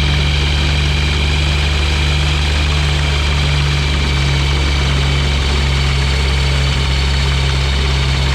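Ultralight aircraft engine running steadily, a loud, even low drone that does not change in pitch or level.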